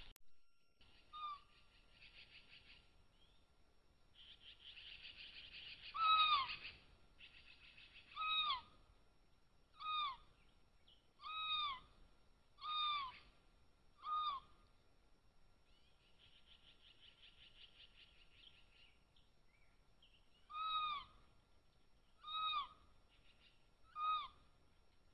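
Cougars chirping: about nine short, high, whistle-like chirps, each rising then falling in pitch, a second or two apart, with a pause of several seconds in the middle. A faint buzzing trill comes and goes between them.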